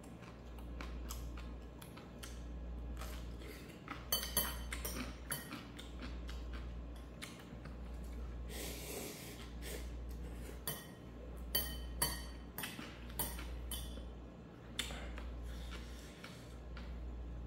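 Eating utensils clinking and tapping against a dish at irregular moments while someone eats ramen, over a steady low hum.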